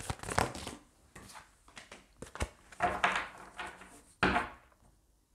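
Tarot cards being shuffled and handled in the hands: quick clicks and rustles of card stock, with a card drawn from the deck and laid on the table.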